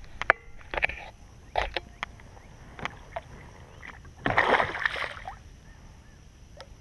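A few short knocks against the kayak, then a loud splash of water about four seconds in as the bass is let go over the side.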